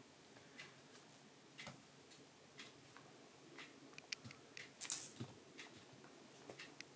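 Faint, irregularly spaced small ticks and soft rustles from a kitten moving and playing with a wand toy on a fleece blanket, with one louder brushing rustle about five seconds in.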